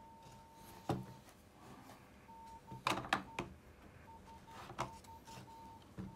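Sparse light clicks and knocks of hands and a tool handling the metal fittings on a vintage record player's deck plate: one about a second in, a quick cluster around three seconds, another near five seconds. A faint thin high tone comes and goes behind them.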